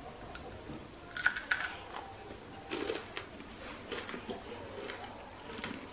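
Faint chewing of a freshly fried seeni ariyatharam, a sugared rice-flour sweet, with a few soft clicks and short rustles.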